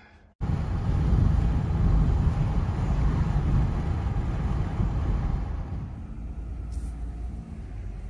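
Road and engine rumble inside the cabin of a 2015 Dodge Grand Caravan minivan driving at about 40 mph. It starts suddenly and grows quieter after about five seconds as the van slows.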